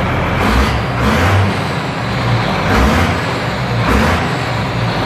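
Engine idling and being blipped, its throttle snapped open briefly about four times. To the owner it still sounds healthy.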